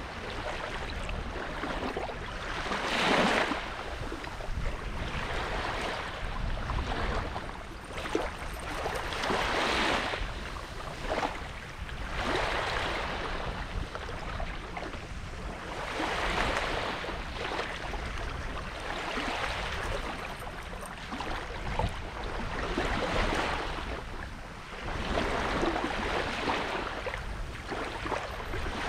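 Small sea waves washing onto a beach in a rising and falling rhythm, a swell every few seconds, with some wind on the microphone.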